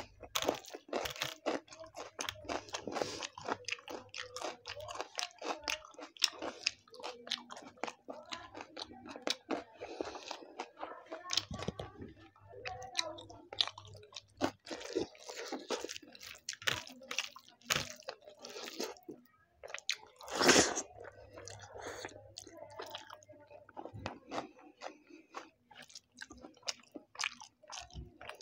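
Close-miked chewing and wet mouth clicks of a person eating chicken biryani by hand, irregular and continuous. About twenty seconds in there is a single louder, sharper noise.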